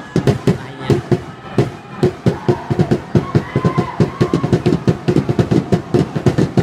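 A rapid, irregular series of sharp bangs, several a second, with voices underneath.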